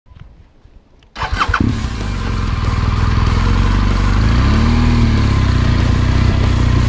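BMW R1200GS boxer-twin engine starting about a second in, then running steadily. Music plays along with it.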